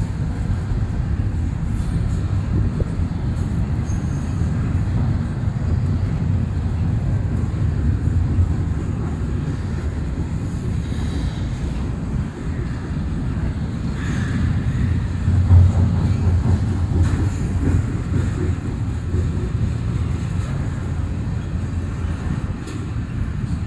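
Double-stack intermodal freight train's well cars rolling past on the rails: a steady low rumble of wheels on track.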